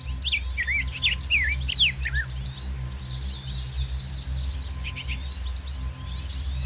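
Small birds chirping: a quick run of rising and falling chirps in the first couple of seconds, then fainter, busier twittering, over a steady low hum.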